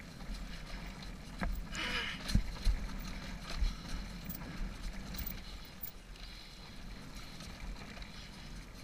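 Dirt bike engine running with a steady low hum as the bike rolls down a rutted trail, with wind on the microphone and a few sharp knocks from bumps.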